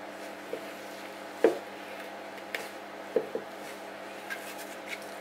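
A wooden spatula folding wet, sticky no-knead bread dough in a mixing bowl, knocking sharply against the bowl several times, loudest about a second and a half in.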